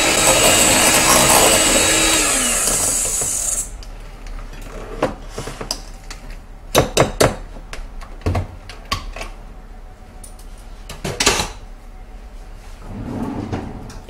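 Electric hand mixer running in a bowl of cottage-cheese batter, then slowing with a falling pitch and stopping about three and a half seconds in. Several sharp knocks and clicks follow.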